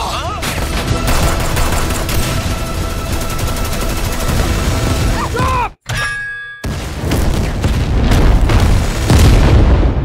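Action-trailer sound mix: rapid gunfire and booming impacts over loud music. It cuts out abruptly for a moment a little under six seconds in, then loud music and impacts resume.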